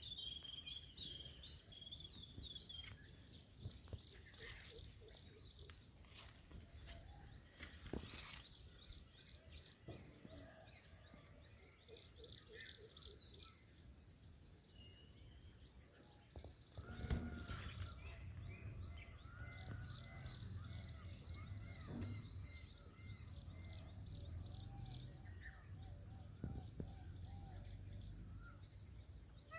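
Faint outdoor wildlife ambience: many small birds chirping and twittering over a steady high insect drone, with a louder thump about halfway through.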